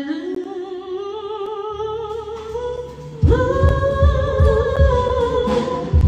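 A singer holds long notes with vibrato, slowly climbing in pitch, over a quiet accompaniment; about three seconds in the live band comes in loudly with heavy bass. This is a stage rehearsal of a gospel stage show.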